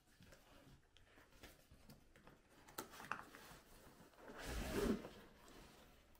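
Cardboard box and the dog-cot parts packed in it rustling and knocking as they are handled and a dog noses into the box: a few light clicks, then a louder scraping rustle about four and a half seconds in.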